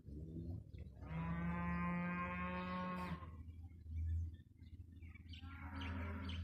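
A cow gives one long, level moo of about two seconds, starting about a second in. Birds chirp near the end.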